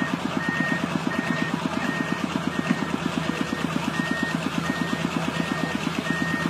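Excavator's diesel engine running with an even, fast low pulse, while its travel alarm beeps steadily, a little more than once a second.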